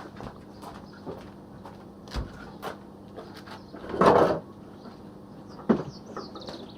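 Scattered light knocks and clicks of objects being handled, with one louder clattering scrape about four seconds in and a sharp knock shortly before the end.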